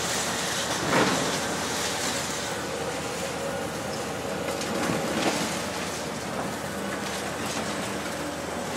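High-reach demolition excavator's crusher jaws crunching and breaking a concrete wall, with sharper cracks about a second in and again around five seconds in, over the steady hiss of a dust-suppression water spray.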